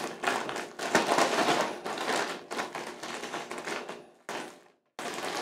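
Plastic quart zip-top bag crinkling and rustling as it is handled with chicken bites and hot sauce inside; the crinkling fades out about four seconds in.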